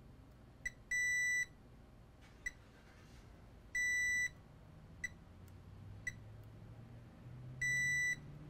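Digital multimeter in diode mode beeping as its probes touch components on a laptop motherboard. There are three steady, high half-second beeps a few seconds apart, with short chirps and probe-tip ticks between them.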